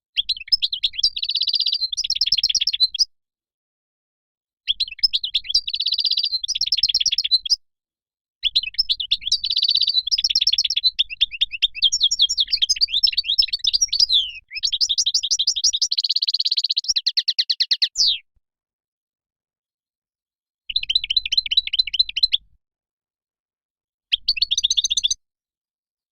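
European goldfinch song: rapid, liquid twittering and trilling phrases in six bursts of one to six seconds, with clean breaks of silence between them.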